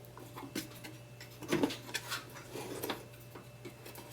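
A few light clicks and knocks from an electricity meter's latch being released and the meter being handled out of its socket.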